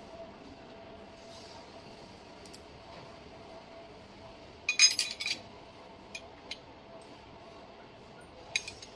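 Metal pieces clinking against each other: a short loud cluster of clinks about five seconds in, then a few lighter ticks, over a faint steady hum.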